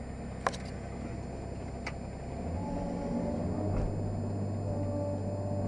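Caterpillar 385C excavator's diesel engine and hydraulics running, heard inside the cab, with two sharp clicks in the first two seconds. From about two and a half seconds in it gets louder as the machine works harder, and a steady whine comes in.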